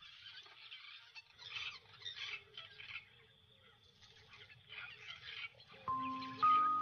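A flock of babblers chattering, their calls coming in irregular bursts. Soft music with held notes comes in near the end.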